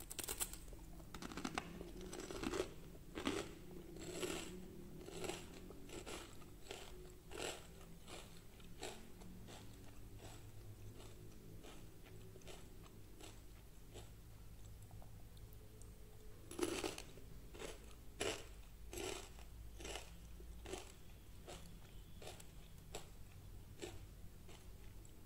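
Crispy fried shredded-potato pancake crackling and crunching as hands tear and break it apart: a run of separate crunches, a quieter stretch in the middle, then another cluster of sharper crunches.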